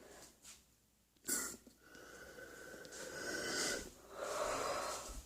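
Someone using an asthma inhaler: a short, sharp hiss of the puff about a second in, then a long breath drawn in with a faint whistle, and a breath out near the end.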